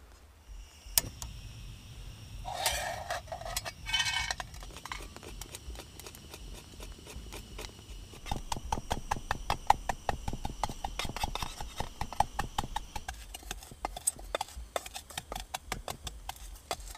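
Portable gas stove: a sharp click about a second in, then the burner running with a steady low hiss under a metal pot. Beechnuts are worked in metal cookware with clinking and scraping, giving way about eight seconds in to rapid repeated knocking as a stick pounds the roasted beechnuts into powder for coffee.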